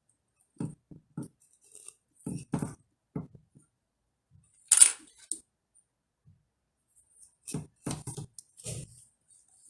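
Hard resin ball-jointed doll parts clicking and knocking together in short irregular clusters as a hand is fitted onto the doll's wrist. There is one louder, brighter scrape near the middle.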